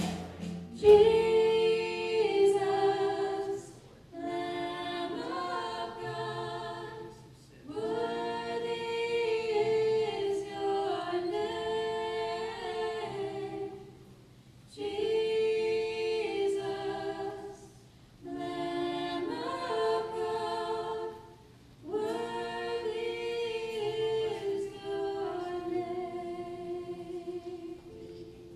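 A group of voices singing a slow worship chorus, largely unaccompanied, in phrases of a few seconds with short breaks between them. The last long held note fades out near the end.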